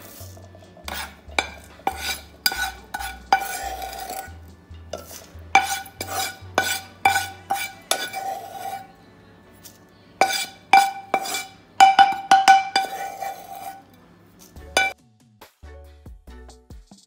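Steel spoon scooping roasted spices out of a stainless steel pan, scraping and clinking against the pan in quick clusters of ringing metallic taps. The clinking stops about fifteen seconds in.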